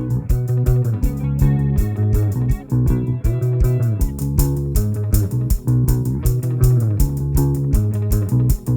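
Background music led by electric and bass guitar, with a steady beat and notes that slide in pitch.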